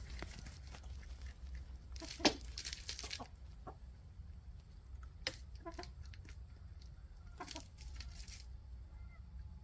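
Backyard hens clucking in a few short calls, with rustling and one sharp tap about two seconds in.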